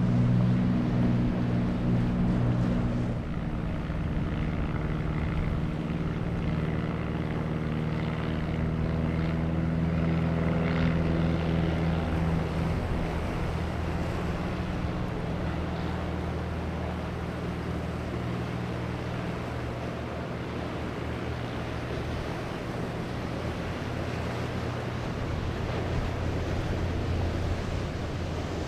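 Inboard engines of motor yachts running at speed, a steady low drone, loudest in the first few seconds, over the rush of spray and waves breaking off the hulls.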